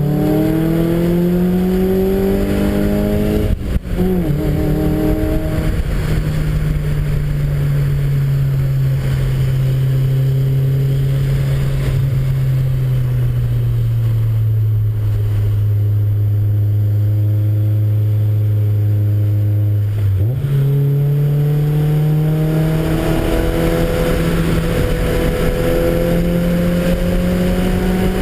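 Car engine under way on a race track: it revs up, drops in pitch with an upshift about three and a half seconds in, then holds a long, slowly falling note. About twenty seconds in the note dips and jumps up as the car changes down a gear, then climbs steadily again as it accelerates.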